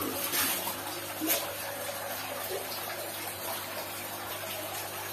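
Steady trickle of running water into the fish tubs, with a couple of small clicks or splashes in the first second and a half.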